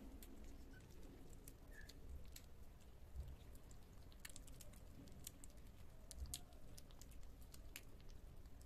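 Kittens eating soft food from a plate: faint, irregular lapping and chewing clicks.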